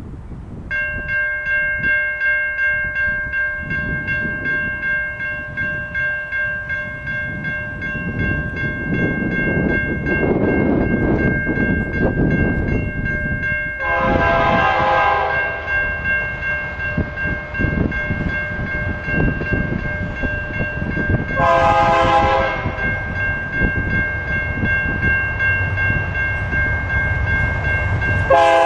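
A railroad crossing bell starts ringing about a second in as the gates lower. Over a low rumble, an approaching freight locomotive's air horn sounds for the crossing: a long blast about halfway through, a shorter one about seven seconds later, and another starting right at the end.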